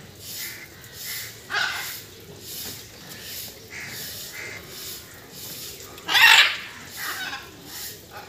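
A few short animal calls, the loudest about half a second long a little after six seconds in, with fainter short calls between.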